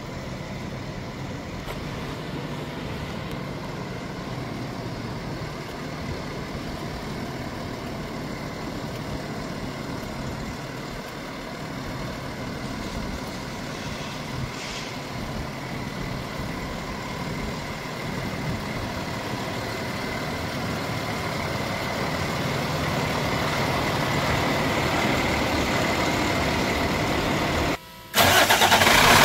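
Cummins ISL9 diesel engine of a 2015 Freightliner 108SD bucket truck running steadily, slowly growing louder, with a brief break near the end.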